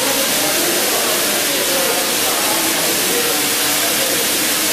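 Steady, loud hissing noise of running industrial machinery, with the chatter of a crowd underneath.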